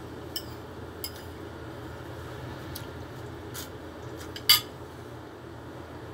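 A metal spoon clinking against a dish a few times while eating, the loudest clink about four and a half seconds in, over a steady low background hum.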